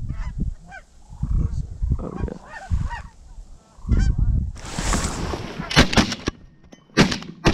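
Geese honking as a flock comes in low. About six seconds in, a quick string of shotgun blasts, four or five shots, as the hunters fire on the flock.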